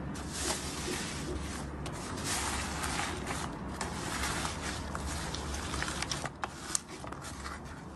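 Slime being squished and worked by hand, a continuous wet hiss studded with many small crackles and pops, thinning to separate clicks near the end.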